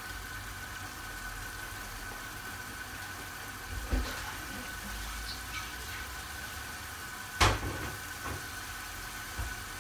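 Chicken pieces and tomato sauce simmering in a frying pan, a quiet steady bubbling, with a single sharp knock about seven and a half seconds in and a softer one about four seconds in.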